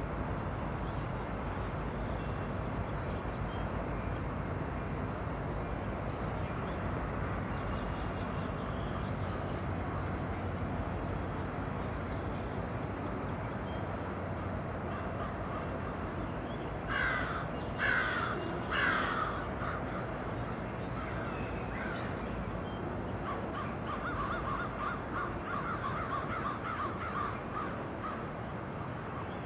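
CN double-stack intermodal freight train rolling past with a steady rumble. A little past halfway a bird calls three times, loud, about a second apart, and a quicker run of shorter calls follows near the end.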